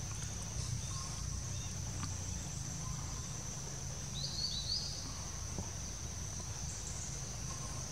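Forest ambience: a steady, high-pitched insect drone over a low rumble, with two short rising chirps about four seconds in.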